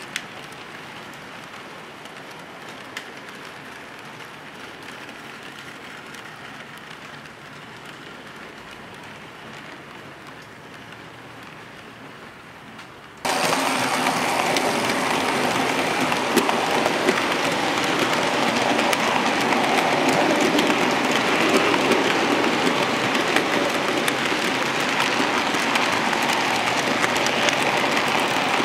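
HO-scale model freight train, a D52 steam locomotive model hauling a long rake of wagons, running on the track: a steady rolling rattle of wheels on rails. About 13 seconds in it suddenly becomes much louder as the train passes close by.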